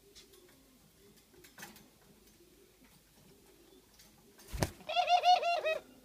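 Doves cooing softly and low throughout. About four and a half seconds in there is a sharp knock, followed by a loud, rapid run of higher-pitched call notes lasting about a second.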